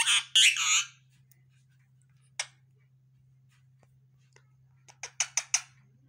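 Indian ringneck parakeet giving a run of shrill chattering calls that stop about a second in. Then comes a single sharp chirp or click, and near the end a quick run of four short sharp clicks.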